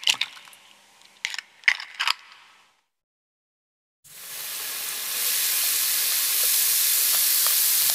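A few sharp taps and cracks as eggs are broken over a glass bowl, then, about halfway through, a steady loud sizzle starts as sliced shallots, onion and chopped herbs fry in hot oil in a pan.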